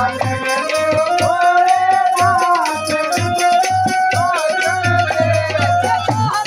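Devotional Hindu bhajan to Shiva: a high voice sings a sustained, gliding melody over a steady hand-drum beat and continuous jingling rattle percussion.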